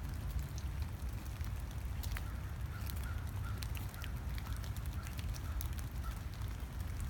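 Footsteps crunching on a gravel trail, with wind rumbling on the microphone. About three seconds in, a bird calls a series of short notes at one pitch, repeated several times.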